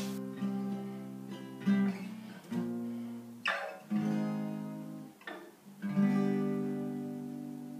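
Acoustic guitar strumming a slow run of chords, each left to ring and fade, with the last chord ringing out at the end.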